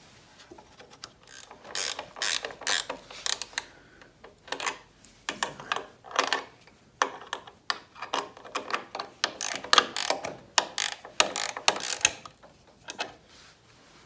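Ratchet wrench clicking in quick runs, with short pauses between them, as the nuts are run down onto the carriage bolts that hold the motor to its mount.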